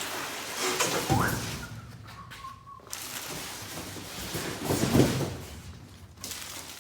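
Handling noise while unpacking: rustling and scraping with a knock about a second in and a louder thump about five seconds in, and a brief squeak just after two seconds.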